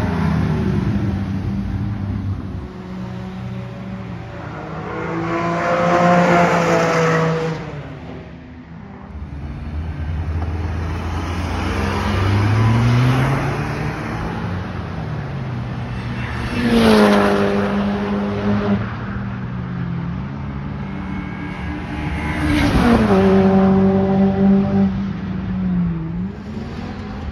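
Porsche Cayman race car engines accelerating past one after another, their pitch climbing and stepping down with gear changes. The three loudest pass-bys come about a quarter, two thirds and four fifths of the way through.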